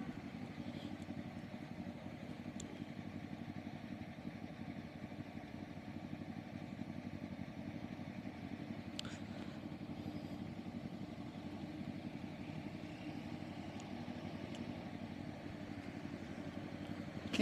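Motorcycle engines idling in stopped traffic, a steady low hum, with one faint short tick about nine seconds in.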